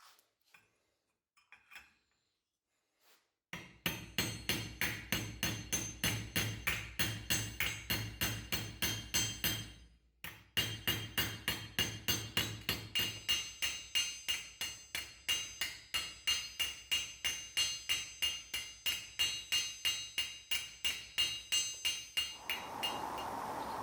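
Hammer striking iron in rapid, even blows, about three a second, each with a metallic ring, peening rivets to join the lamp's parts. The blows pause briefly about ten seconds in, and a steady hiss takes over near the end.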